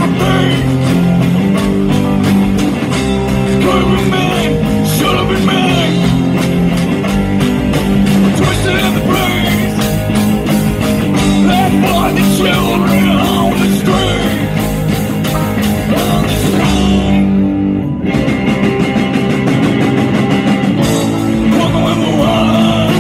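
Live rock band playing with vocals: electric and acoustic guitars, upright bass, banjo and drums. About two-thirds of the way through, the drums and cymbals stop for about a second, then the full band comes back in.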